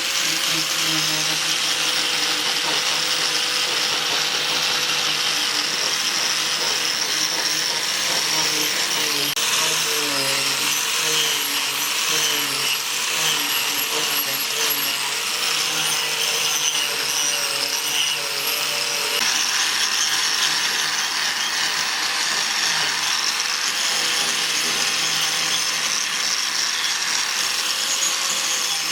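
Angle grinder running continuously against hardwood, carving or sanding out a bowl. Its motor tone wavers for a stretch in the middle as the disc is pressed into the wood.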